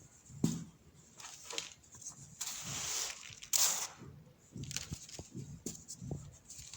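Compressed baking soda being crumbled and crushed: soft crunches and light knocks, with a longer powdery crumbling hiss about two and a half seconds in and a louder crunch a second later.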